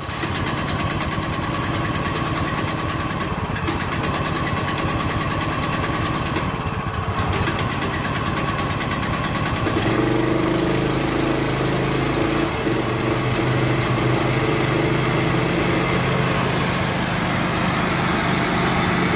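The 15 hp engine of a tow-behind ATV mower runs steadily just after a choke start. About ten seconds in, its running note changes and becomes fuller.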